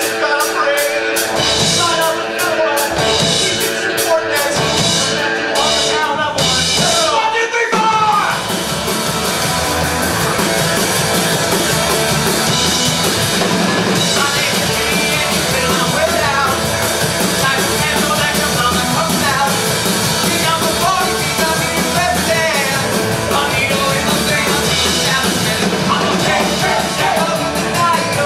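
Live punk rock band with drum kit and guitars: stop-start hits for the first eight seconds or so, then the full band comes in and plays fast and steady.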